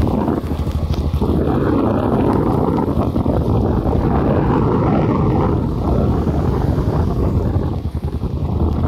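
Wind buffeting the microphone in a rainstorm: a loud, rough low rumble that dips briefly near the end.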